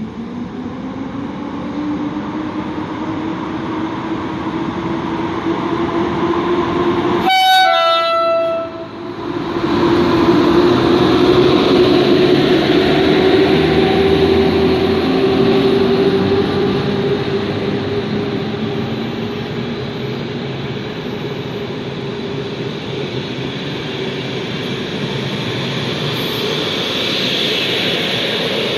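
PKP Intercity passenger train, an electric locomotive hauling coaches, passing close along the platform track with a loud steady rush of wheels and running gear. A sustained tone rises slowly through the first half. The sound briefly cuts out about seven seconds in.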